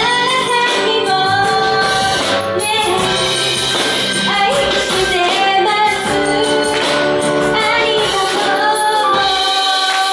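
Female vocalist singing an original pop song live over instrumental accompaniment, with a steady beat; the bass drops out near the end.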